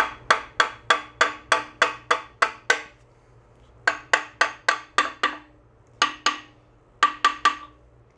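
Hammer tapping a cylinder sleeve down into a 1941 Farmall A engine block, seating it over its O-ring seal. Sharp, ringing strikes come about three a second in runs: about nine, a short pause, six more, then two and then three.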